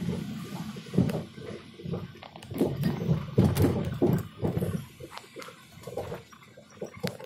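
Irregular rustling and scuffing with a few sharp clicks: footsteps on a rocky path and brush rubbing against a handheld camera. It stops just at the end.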